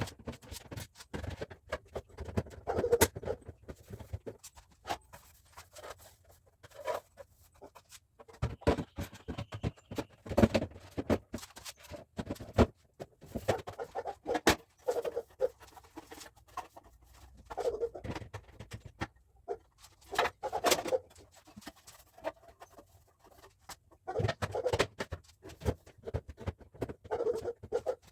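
Repeated clicks and knocks of household items being handled and set down, with short squeaky rubbing sounds every few seconds.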